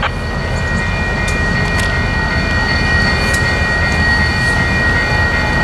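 Grade-crossing warning bell ringing steadily, its high ringing tone carrying over a constant low rumble.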